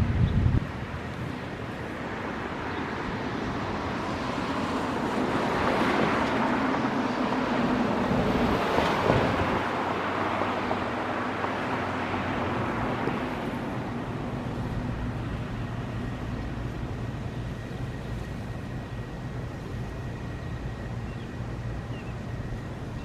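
A passing vehicle: its road noise swells to a peak about nine seconds in, then fades, over a low steady hum.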